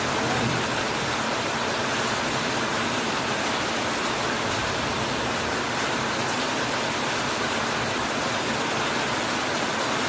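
Heavy rain falling steadily on a corrugated iron roof and broad banana leaves, an even, unbroken rushing hiss.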